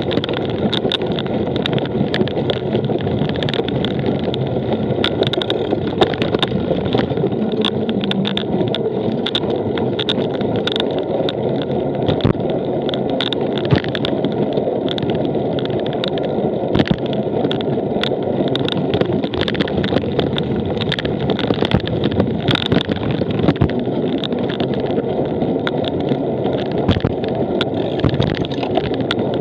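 Cyclocross bike ridden over rough ground: a steady rumble of tyres and wind with constant clicking and rattling from the bike.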